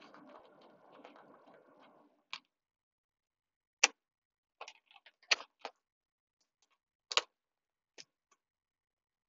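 A faint even noise for about two seconds, then a series of short, sharp clicks and taps at irregular intervals, roughly a second apart.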